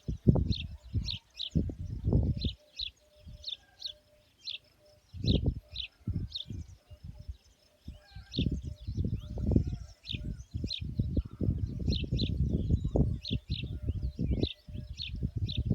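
Small birds chirping: short high chirps, often in quick pairs, repeating all through. Underneath, irregular low rumbling bursts come and go and are the loudest sound, dropping away for a couple of seconds near the start.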